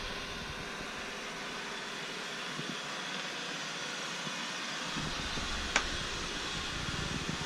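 ECOVACS DEEBOT N79 robot vacuum running, a steady whir of its motor and brushes, with a deeper rumble joining about five seconds in and a single sharp click about six seconds in.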